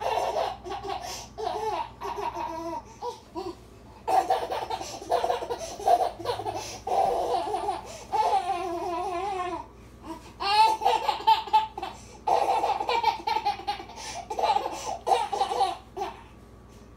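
Eight-month-old baby laughing in repeated bursts, with short pauses between them.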